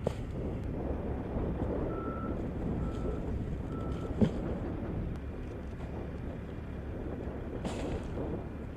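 Three short beeps of one steady pitch, about a second apart, over a steady low rumble, with a single thump just after the last beep.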